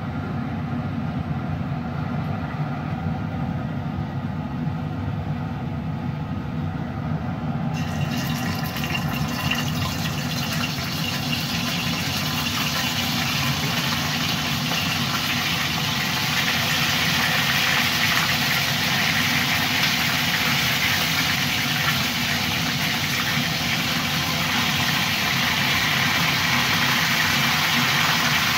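Chicken wings frying in hot oil in a stainless steel wok: a sizzling hiss starts suddenly about eight seconds in as the first wings go into the oil, and grows louder about halfway through as more are added. Under it runs a steady low hum from the stove.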